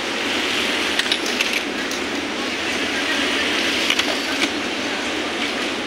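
Industrial sewing machine stitching denim, a steady machine whir with a few sharp clicks about a second in and around four seconds.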